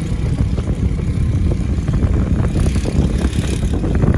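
Steady low rumble of a vehicle on the move, with scattered small rattles and knocks.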